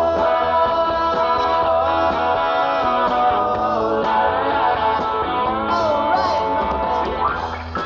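Live rock band playing an instrumental passage, with a melodic lead line bending in pitch over sustained chords and drums.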